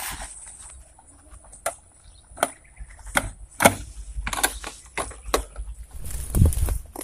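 Irregular clicks and knocks with rustling from a handheld camera being carried while the person holding it walks, and a louder brushing rumble near the end as it pushes through grass. A faint steady high tone sits underneath.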